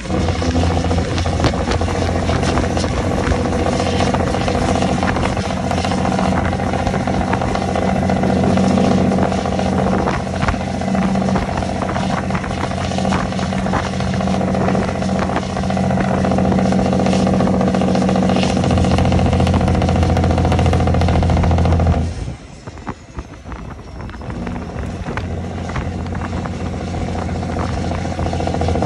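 Cat C15 inline-six diesel in a semi tractor running loud through straight-piped twin stacks, holding a steady pull. About 22 seconds in it cuts back suddenly and goes much quieter, with a faint falling whistle, then builds back up as it pulls again.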